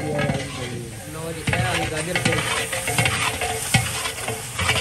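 Long metal ladle stirring and scraping around the inside of a large metal degh, the food in it sizzling in hot oil over a wood fire. It gives a run of irregular scrapes and knocks that gets busier after the first second or so. Near the end, chopped carrots and cabbage are tipped into the pot.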